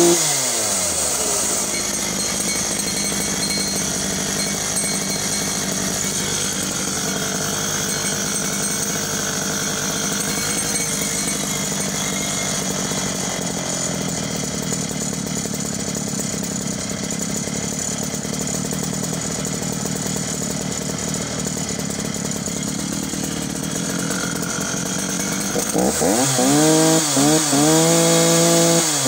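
Homelite 340 54cc two-stroke chainsaw engine idling steadily and evenly, blipped up and down on the throttle a few times near the start and again repeatedly near the end. The owner calls it a gorgeous running engine.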